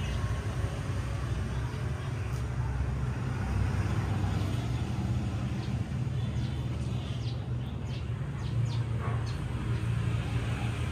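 A steady low engine rumble, even in level throughout.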